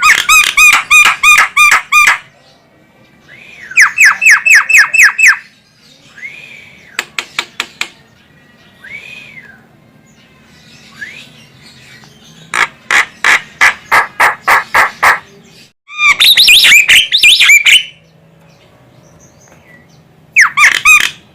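Javan myna (jalak kebo) calling: five loud runs of quickly repeated notes, about five a second, with single arching whistled notes and a few clicks between the runs.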